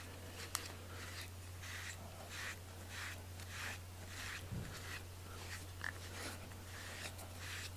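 A bristle grooming brush stroked repeatedly through a cat's fur, short scratchy strokes about twice a second. A steady low hum runs underneath.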